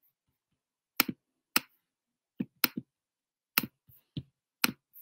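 Sharp clicks at a computer, about eight of them, several in quick pairs, with silence between, while links are being shared from it.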